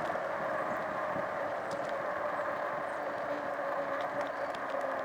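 Steady wind and road noise while riding along a street, an even rush with a few faint ticks.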